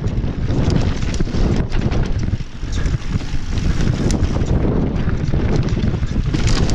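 Wind buffeting the microphone of a mountain bike action camera with the rumble of tyres on a rocky dirt trail, broken by frequent sharp clicks and rattles from the bike over rough ground.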